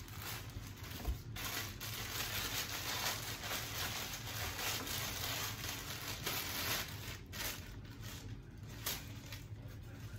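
Thin plastic packaging bag crinkling and rustling as it is handled and opened, busiest for the first seven seconds and then easing off.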